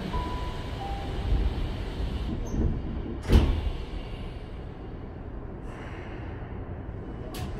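Tokyu 5050 series train's sliding passenger doors closing, shutting with a sharp thud about three seconds in, over a steady low hum from the stopped train. A single sharp click comes near the end.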